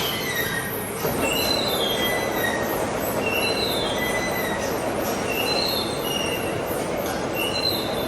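A metal-cutting machine tool running, with a short high-pitched squeal of the cut about once a second over a steady grinding noise.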